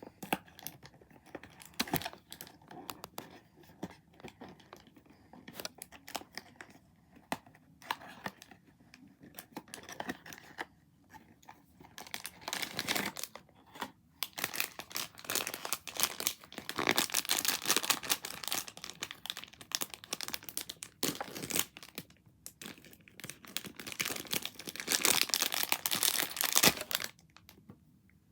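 Blind-box packaging being torn open and crinkled by hand, in several louder bursts of crackling, stopping shortly before the end.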